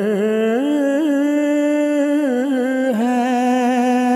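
A man's voice singing an Urdu nazm solo and unaccompanied, drawing one word out into a long held note. The note has small ornamental turns in pitch about a second in and again around the three-second mark, then holds steady.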